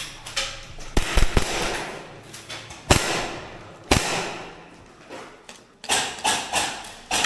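Gas blowback airsoft gun firing single shots, each a sharp crack: three in quick succession about a second in, one each about three and four seconds in, then several more near the end.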